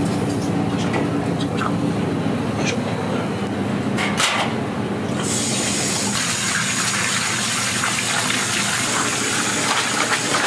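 Steady low kitchen hum, then about five seconds in water starts gushing hard from a tap and keeps running: cold water rinsing boiled udon to wash out the salt.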